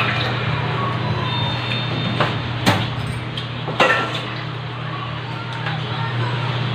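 A few sharp clinks and knocks of tableware during a meal, over a steady low electrical hum.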